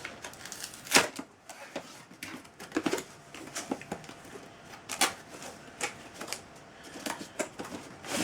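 Irregular clicks, taps and rustles of packaging and hard plastic parts being handled while the sander and its dust collector are taken out, with a sharp knock about a second in and another about five seconds in.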